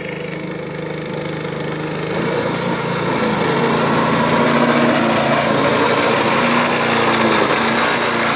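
Small motor boat engine running steadily. Its drone grows louder between about two and four seconds in, then holds.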